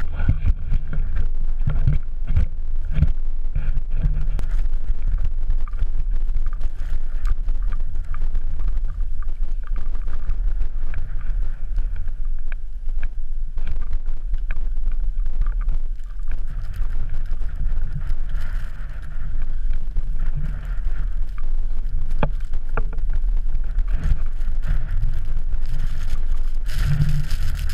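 Wind buffeting an action-camera microphone: a loud, steady low rumble, with a few sharp clicks and knocks now and then.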